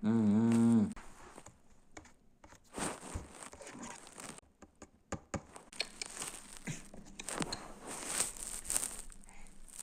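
A voice hums briefly, cutting off about a second in. Then come faint, scattered rustling, crinkling and clicking sounds. No engine is heard.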